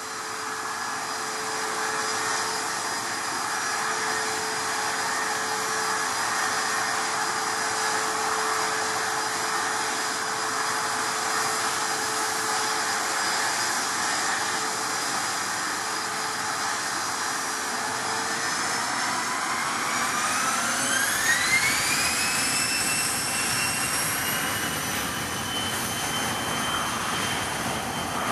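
Bombardier CRJ200's two rear-mounted General Electric CF34 turbofans whining steadily at low power, then spooling up to takeoff thrust: the whine rises steeply about twenty seconds in and settles at a higher pitch.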